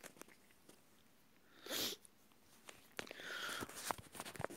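Quiet breathing and mouth noises close to the microphone: a short breath a little under two seconds in, then a longer breathy hiss with small clicks from about three seconds in.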